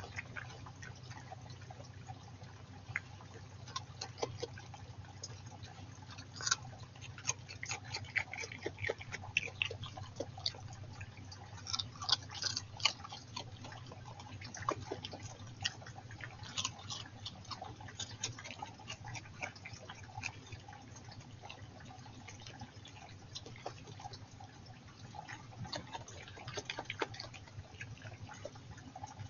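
European badger snuffling and chewing while it forages for worms, heard as irregular wet clicks and crackles, over a stream's steady trickle.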